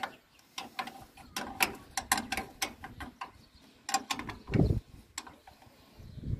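Irregular sharp metallic clicks and clinks of hand tools working the bolts on a John Deere 346 baler's knotter, with a dull low thump about four and a half seconds in.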